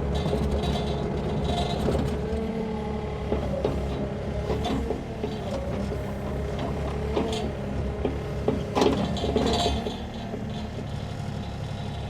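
Sany mini-excavator's diesel engine running steadily under a wavering whine, with the bucket scraping and knocking as it digs through the soil. The loudest clunks come near the middle and about three-quarters of the way through.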